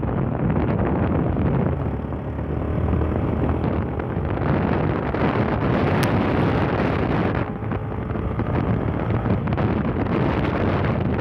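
Yamaha Fazer 150 motorcycle's single-cylinder engine running while riding, mostly covered by heavy wind buffeting on the microphone, with brief dips in level a few times.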